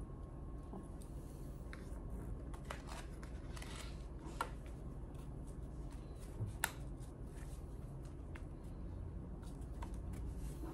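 Fabric and a clear plastic ruler being handled on a sewing table: soft rustling and shuffling, with two sharp clicks, one about four seconds in and one at six and a half, as plastic sewing clips are pressed onto the fabric edge. A low steady hum runs underneath.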